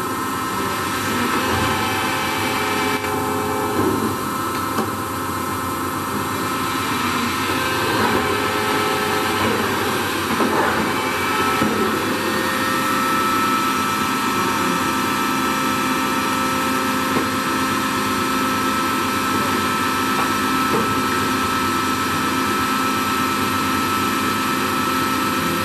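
Toolmex TUR 560 M engine lathe running, its headstock gearing giving a steady mechanical hum and whine. Its tones shift a couple of times partway through.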